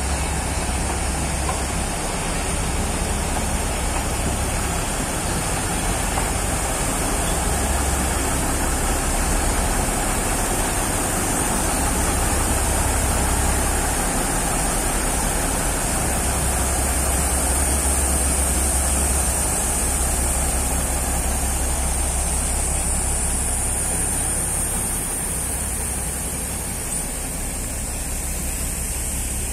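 Narrow-gauge NDM1 diesel locomotive's engine running with a steady heavy low rumble that swells and eases every few seconds.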